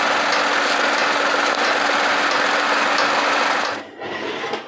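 A steady machine running noise, a hiss with a low hum and very fast ticking, that stops abruptly near the end.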